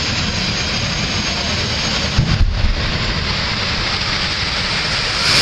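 Drag racing cars' engines running at the start line, heard across the strip as a steady loud noise, with a few sharp low blips about two seconds in.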